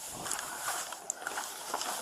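Irregular rustling and footsteps of a person moving off quickly, with a sharp click about a second in.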